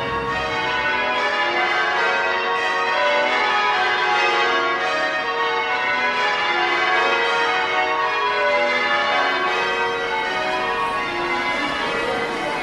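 A peal of church bells ringing, many bells struck in turn in a repeating falling sequence, their tones overlapping.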